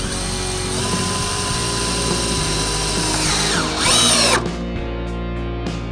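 Cordless drill driving a screw into wood: the motor runs with a steady whine, its pitch sinks under load, then a short louder burst about four seconds in before it stops.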